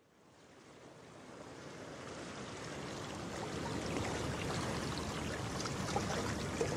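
Steady rushing-water noise, like surf or a stream, fading in from silence and growing louder over the first few seconds.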